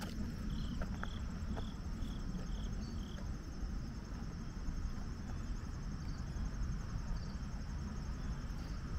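Insects chirping steadily in a high, even pulse, with a quick run of about seven short chirps in the first three seconds, over a steady low rumble.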